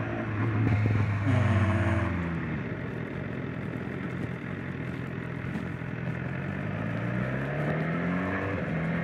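Motorcycle engine heard from the saddle, pulling away from a stop: the revs climb, drop at an upshift about a second in, settle, then climb again and drop at another shift near the end, with wind rush underneath.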